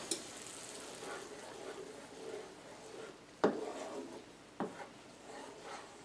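Spoon stirring a thickening gravy of flour, chicken broth and milk in a frying pan, the gravy faintly sizzling, with two sharp knocks of the spoon against the pan about a second apart near the middle.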